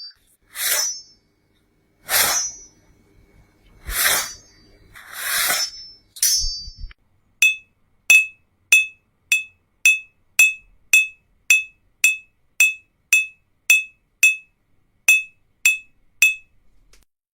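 A string of "ting" sound effects. First come several short whooshing swells, each with a high bright ring in it. Then a steady run of about sixteen short, clear metallic pings, about two a second, which stops near the end.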